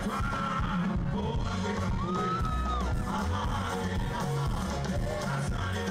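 Live band music over a concert PA. A heavy bass line comes in at the start, and a voice holds a long note about two seconds in.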